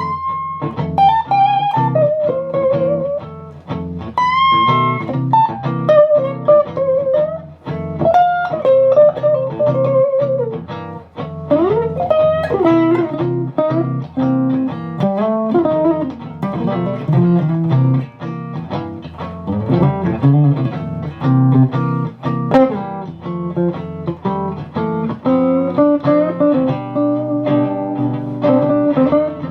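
Electric guitar played through an amp and speaker cabinet: single-note lead lines with string bends, slides and vibrato over lower sustained notes.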